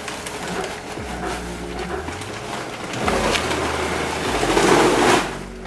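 Walnut kernels poured from a sack into an oil mill's metal hopper: a rushing pour that gets louder from about three seconds in and cuts off shortly before the end.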